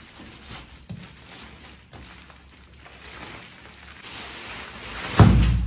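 Plastic wrapping on a new mattress rustling and crinkling with a few soft knocks as the mattress is handled, then a heavy thud with a burst of rustling about five seconds in as the plastic-wrapped mattress flops down.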